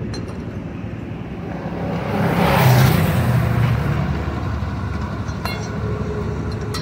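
Steady low traffic rumble, with a vehicle passing close: the sound swells about two and a half seconds in and then eases away.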